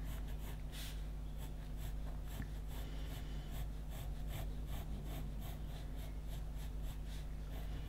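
Graphite pencil scratching on paper in a quick run of short strokes, about three or four a second, as a line is sketched, over a steady low hum.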